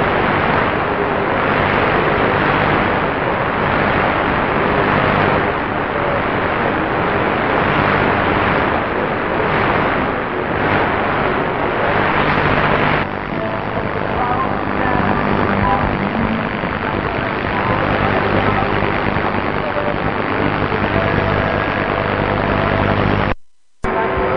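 Shortwave radio loudspeaker on 15770 kHz playing a weak AM broadcast, WRMI's relay of Overcomer Ministry, with faint speech buried under heavy static hiss and a steady hum. Near the end the audio cuts out for about half a second as the radio is retuned to 5940 kHz.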